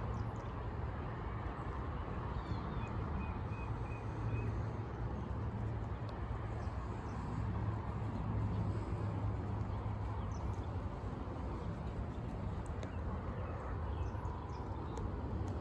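Steady outdoor background noise with a low hum underneath, and a few faint bird chirps about two to four seconds in.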